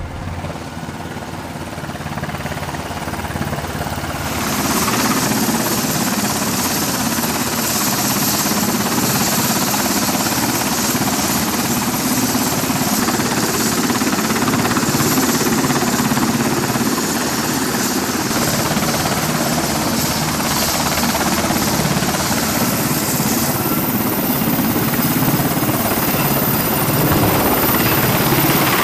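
US Navy Seahawk helicopter running close by: its twin turboshaft engines and main rotor give a steady, loud chopping roar with a thin high whine. The noise grows louder about four seconds in and then holds.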